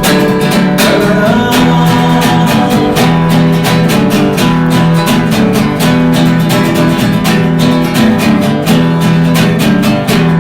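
Music: acoustic guitar strumming steadily, with no singing.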